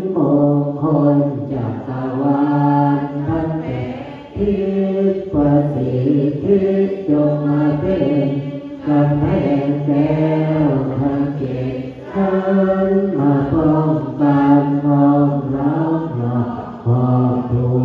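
Buddhist monks chanting Pali verses together, a steady recitation on a few held pitches, pausing briefly for breath every few seconds.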